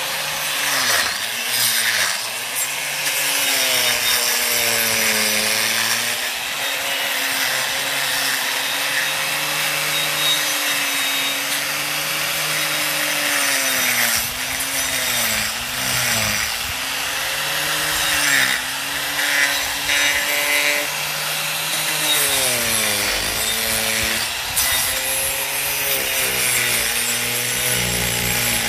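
Angle grinder with a carving disc running steadily and cutting into Chinese elm dead wood, a hissing grind over the motor's whine. The whine sags in pitch a few times as the disc is pressed into the wood, then recovers as the load eases.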